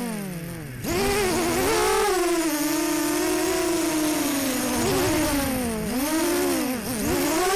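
Brushless motors and propellers of a Storm SD250 FPV racing quadcopter whining as they follow the throttle, heard from the quad's own onboard camera. The pitch falls steeply as the throttle is cut, then climbs back about a second in, and dips and rises again a few times near the end.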